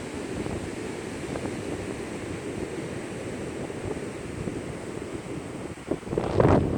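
Storm surf rushing on a beach in a steady wash, with a gust of wind buffeting the microphone near the end.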